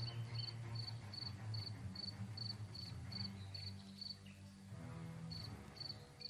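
A cricket chirping in a steady rhythm, about two and a half chirps a second, pausing for about a second near the end before starting again, over a low droning note.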